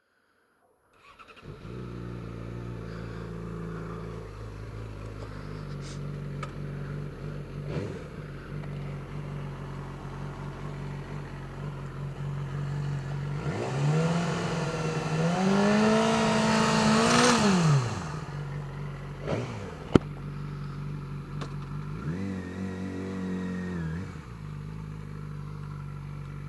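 2009 Yamaha R6's inline-four engine idling, then revved up and held high for a few seconds, with a shorter rev later and a single sharp click between them. The owner reports a strange noise at 7,000 to 8,000 rpm, later traced to a loose washer rattling between the crash cage and the engine mounts.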